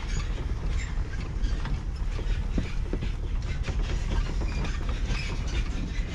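Pontoon boat underway at slow trolling speed: a steady low rumble with a continuous light clattering rattle.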